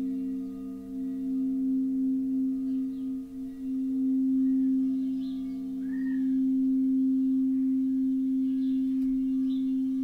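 Crystal singing bowls ringing in long, pure low tones, two close pitches pulsing against each other for the first few seconds, then swelling and holding steady.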